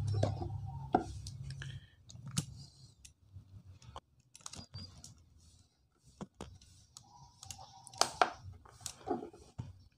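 Small plastic clicks and taps, scattered and irregular, from the buttons and case of a Lancol Micro-200 Pro handheld battery tester as its menu is stepped through.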